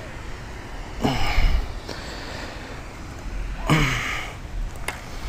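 Two short, breathy sighs from a person close to the microphone, each falling in pitch, about a second in and again about three and a half seconds in. Low wind rumble runs underneath, and there is a single click near the end.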